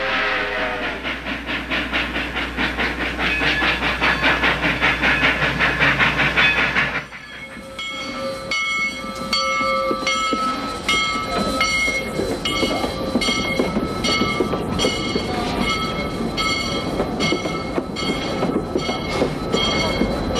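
Steam locomotive working hard, its exhaust chuffing in rapid beats, several a second, with steam hiss, growing louder as it comes on. About seven seconds in the sound cuts abruptly to a lighter rattling clatter with steady ringing tones that keep breaking off and restarting.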